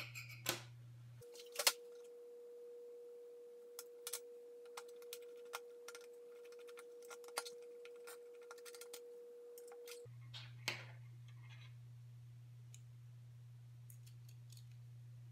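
Light clicks and taps of small metal knife parts being handled, fitted together and set down on a table, scattered irregularly, with sharper clicks a little under two seconds in and again at about ten and a half seconds.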